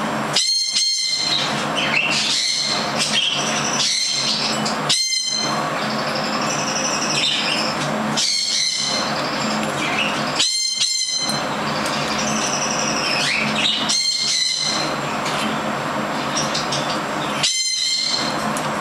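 Pet parrot giving short, sharp chirps every few seconds and a few gliding whistles, over a steady background hiss.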